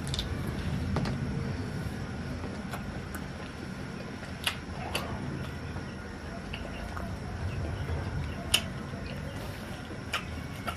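A person eating roasted chicken: scattered short smacks and clicks of chewing and tearing at the meat, about eight in all, over a steady low background rumble.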